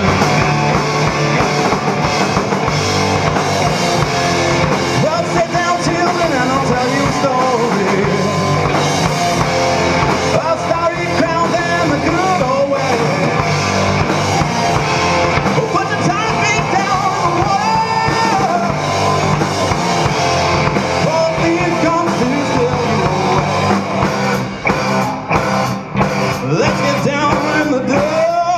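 Live rock band playing loud and without a break: electric guitar, electric bass and a Pearl drum kit, with a melodic line bending in pitch over the top. The sound drops out briefly a couple of times near the end.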